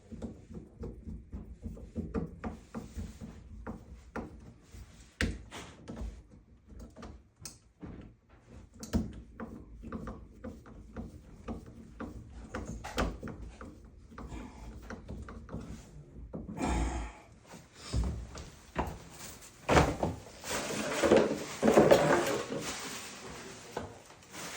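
Irregular knocks, clicks and clatter of tools and shower valve parts being handled, with a louder, busier stretch of knocking and rustling near the end.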